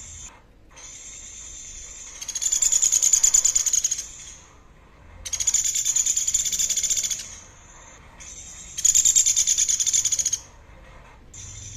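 A songbird's high, rapidly pulsed trill, given three times, each lasting a second and a half to two seconds, with softer, quieter calls between the trills.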